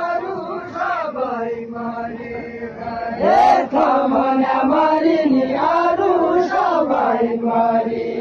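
A crowd of mostly male voices chanting a traditional song together in long, drawn-out lines. About three seconds in, one voice rises above the rest and the chant grows louder.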